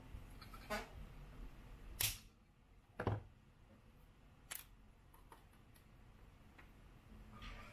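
Handling noises from a thin LED light-strip circuit board being worked by hand on a rubber bench mat: four sharp clicks and taps about a second apart, the loudest two and three seconds in, over faint room hum.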